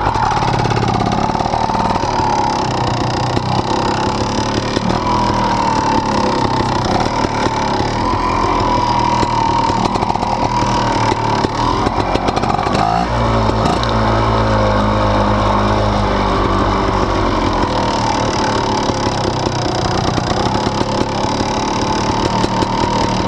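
Fantic 300 trial motorcycle's two-stroke single-cylinder engine running under a rider on a dirt trail, its note rising and falling with the throttle. About halfway through it eases to a lower, steady note for a few seconds, then picks up again.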